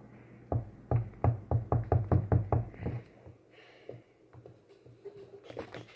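A rapid series of hard knocks, about four a second, starting about half a second in and lasting some two and a half seconds, then a few scattered fainter clicks.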